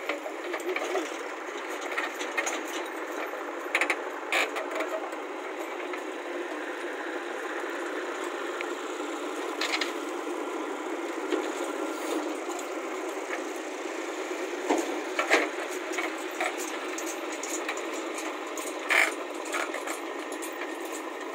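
JCB backhoe loader working, its diesel engine running steadily as the rear arm digs soil and swings to dump it into a tractor trolley. A few sharp metallic clanks and rattles from the bucket and arm stand out over the engine, the loudest about two-thirds of the way through.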